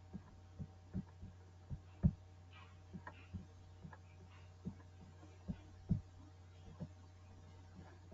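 Faint, uneven clicks of a computer keyboard being typed on, over a steady low electrical hum.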